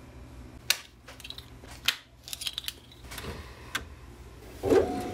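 Metal eyeglass frame clicking and rattling as it is clamped into the frame holder of a Mr Blue 2.0 lens edger: a few sharp clicks. Near the end the machine's motor starts with a steady whirring tone.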